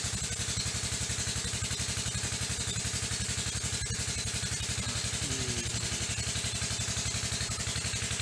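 A small engine running steadily at idle, with an even, rapid beat of about a dozen pulses a second.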